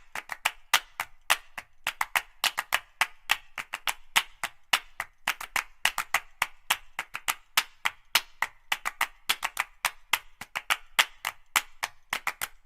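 Rapid, unevenly spaced sharp taps of something hard striking a hard surface, about four a second.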